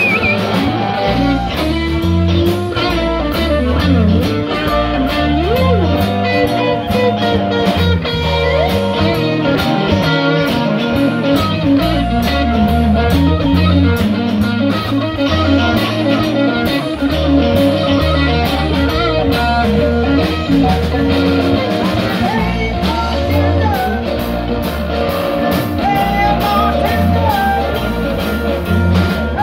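Live blues-rock band playing: electric guitars over a drum kit, with a saxophone playing held notes above them.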